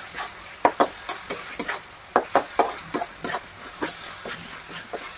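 A flat metal spatula scrapes and taps against an aluminium pan while stirring a thick, grainy mixture of grated coconut, milk and sugar as it cooks down until the milk is used up. The strokes come quickly and irregularly, about three a second.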